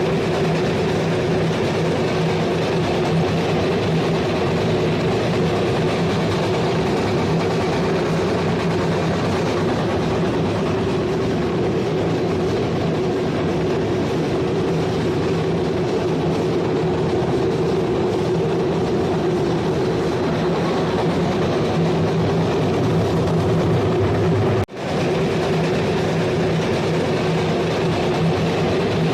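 Pellet mill running steadily, a loud, even mechanical drone with a constant low hum. The sound drops out for an instant about 25 seconds in, then carries on unchanged.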